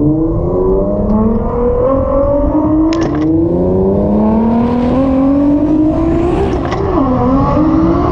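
Tesla Model S Plaid accelerating flat out: a motor whine that climbs steadily in pitch over a heavy road and tyre roar. The whine dips briefly and picks up again near the end.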